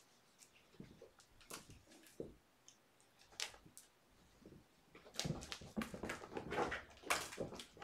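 Kittens pouncing and scuffling on a carpeted floor over a wand toy, with scattered light taps and clicks at first, turning into a busier scuffle about five seconds in.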